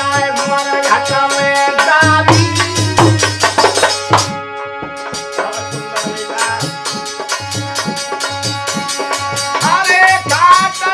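Folk bhajan: a harmonium holds steady chords under a steady dholak drum rhythm, with a man singing, the voice clearest near the end.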